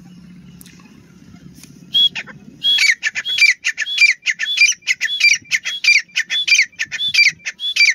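Grey francolin calling: a loud, shrill call repeated about twice a second, beginning about two seconds in, each phrase rising then dropping in pitch. A low steady hum sits under the first couple of seconds and stops about when the calling takes hold.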